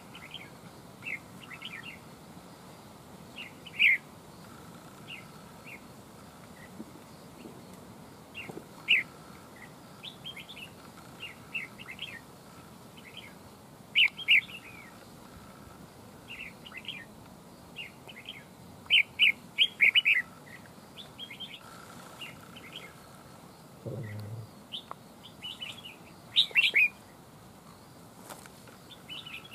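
Red-whiskered bulbuls calling: short, sharp chirps and quick call phrases at irregular intervals, some in runs of two or three. This is a wild bulbul and a caged decoy sparring, the wild bird already worked up to fight.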